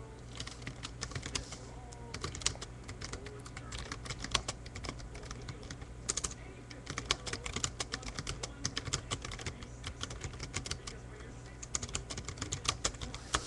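Typing on a computer keyboard: runs of quick keystrokes broken by short pauses, over a steady low hum.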